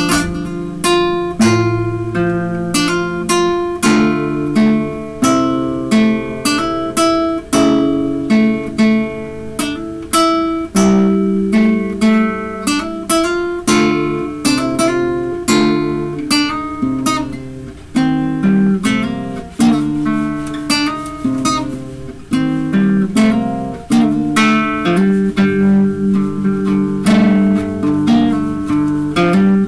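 Acoustic guitar played solo: a run of plucked notes and chords over low bass notes, each ringing on and fading before the next.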